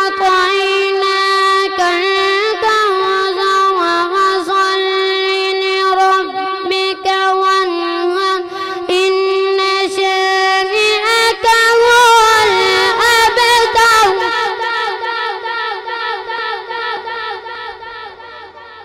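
A boy reciting the Quran in a long melodic line, holding one sustained note with quick ornamented turns, through a mosque microphone and sound system. After about 14 seconds the voice fades away over the last few seconds with a repeating echo.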